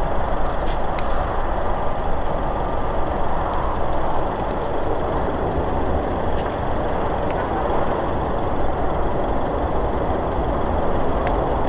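Lufthansa Airbus A380-841's four Rolls-Royce Trent 970 turbofans on approach at landing power: a steady, even rumble without clear pitch.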